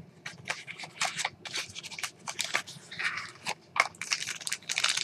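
Plastic packaging rustling and crinkling, with irregular small clicks and scrapes, as a folding knife is taken out of its wrapping.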